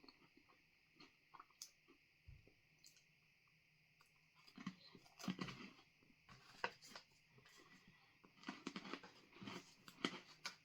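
A person chewing a crunchy freeze-dried ice cream sandwich with wafers, close to the microphone. Faint scattered crunches at first, then louder, irregular crunching from about four seconds in.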